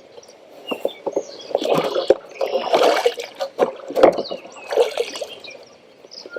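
Water splashing and sloshing at a kayak, in several separate swishes about a second apart.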